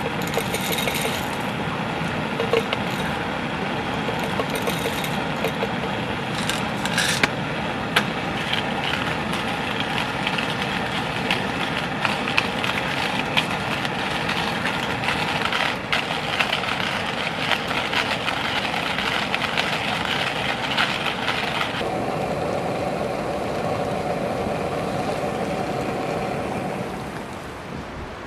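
Heavy rain falling steadily, with sharp crackles and pops from a wood campfire. The hiss changes about three quarters of the way through and drops near the end.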